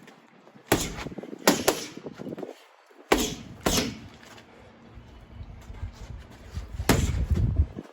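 Boxing gloves striking a heavy punch bag: about seven sharp thuds in three quick combinations, with a low rumble under the last.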